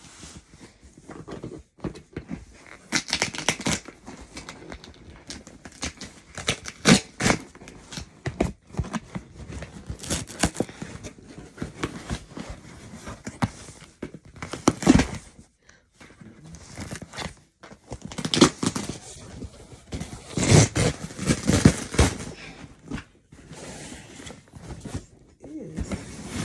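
Heavily taped cardboard box being cut and torn open by hand: irregular ripping, scraping and rustling of tape and cardboard, with several louder rips in the middle stretch.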